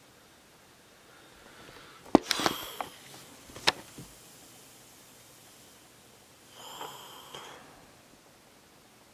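Handling noise: a few sharp clicks and a brief rustle as the person shifts and the camera is moved, about two to four seconds in, then another short rustle against the clip-on microphone about seven seconds in.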